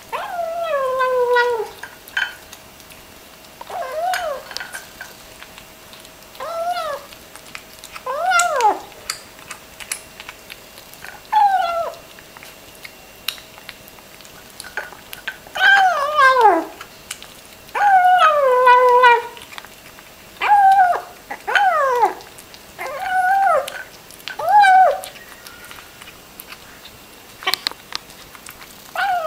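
Kitten mewing while it eats: about a dozen short cries, each falling or rising and falling in pitch, coming every second or few, with faint clicks between them.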